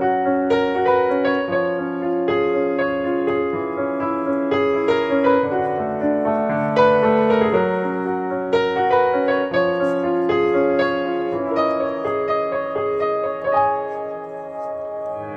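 Background piano music: a gentle melody of single notes and held chords.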